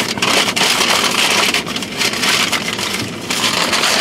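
Brown paper sandwich bag crinkling and rustling as it is handled close up, a steady crackle of many small irregular crackles.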